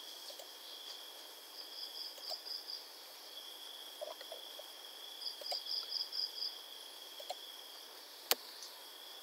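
Faint insect chirping: a steady high drone with two runs of rapid pulsed chirps, about five or six pulses each, plus one sharp click about eight seconds in.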